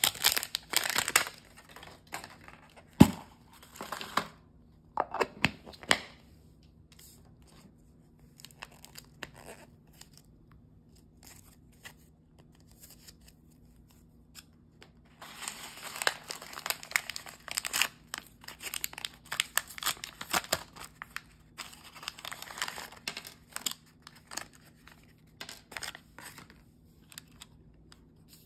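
Thin plastic shrink wrap being torn and peeled off a plastic toy capsule, then thin plastic and paper wrappers crinkling and tearing as they are opened by hand. A sharp plastic click about three seconds in, a few lighter clicks after it, and a long stretch of dense crinkling in the second half.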